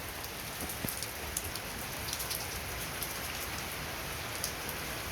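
Heavy rain falling in a strong wind: a steady, even hiss with scattered small taps.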